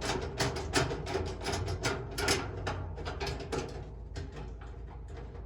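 Quick metallic clicks, about four or five a second, thinning out after about four seconds, as a screw is worked loose to remove a thermal component from a dryer's sheet-metal heater housing.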